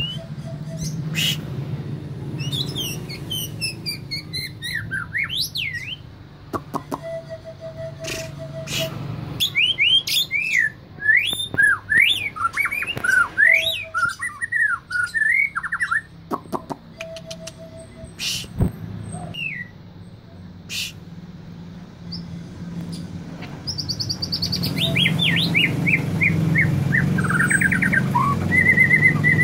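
Caged white-rumped shama (murai batu) singing a long, varied song of fast whistled warbles and trills in bursts, with a rapid descending trill and repeated notes near the end; the song imitates canary song. A steady low hum runs underneath, with a few sharp clicks.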